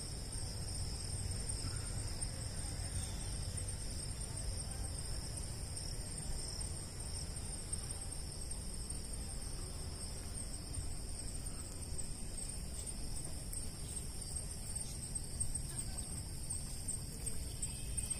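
Night insects chirping steadily at two high pitches, over a low rumble of handling noise from a phone being carried on foot.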